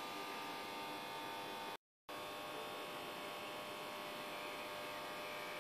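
Faint steady electrical hum made of many thin steady tones, broken off by a moment of dead silence a little under two seconds in.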